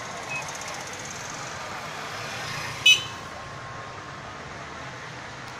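Street traffic ambience, a steady hum of road noise, with one short, loud horn toot about three seconds in.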